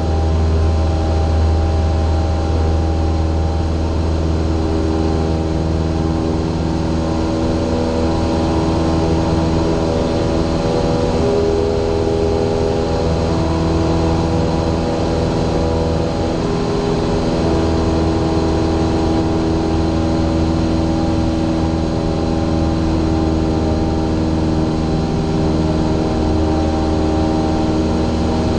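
Single-engine light aircraft's piston engine and propeller running steadily in flight, an even drone made of several steady tones over a strong low hum.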